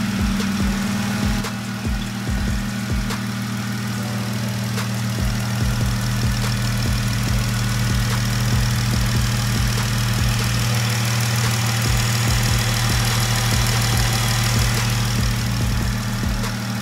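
Jeep Wrangler JK's 3.6-litre V6 idling steadily, just refilled with six quarts of fresh oil after an oil change.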